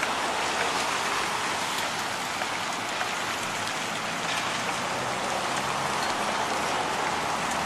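Traffic on a rain-soaked street: a steady hiss of car tyres on wet pavement, with a low engine hum underneath.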